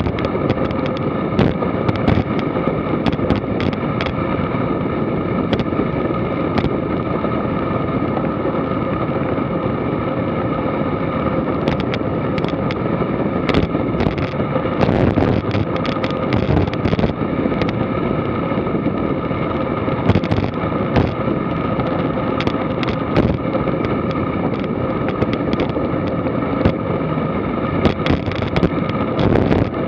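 Wind and road noise on a bicycle-mounted action camera during a fast descent at about 50–56 km/h: a steady rushing with a constant hum underneath. Frequent sharp clicks and knocks run through it.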